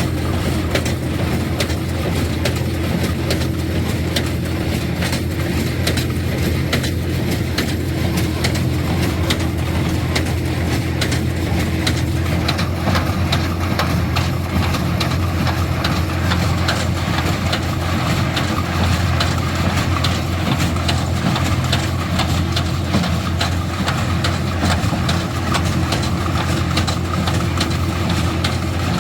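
Diesel tractor engine running steadily while powering a New Holland 67 Hayliner square baler, with a continuous clatter of knocks from the baler's mechanism.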